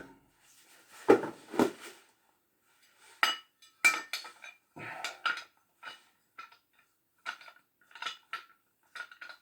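Metal tool parts clinking and knocking as they are handled and set down: a dozen or so separate sharp clicks, some with a brief metallic ring, with short quiet gaps between them.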